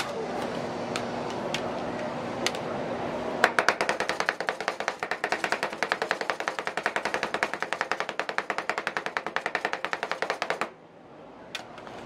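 Two metal spatulas chopping mango and crushed Oreo into the ice cream base on a frozen steel plate: a fast, even run of metal clacks, several a second, starting a few seconds in and stopping abruptly near the end. Before it, a steady background hum with a few scattered taps.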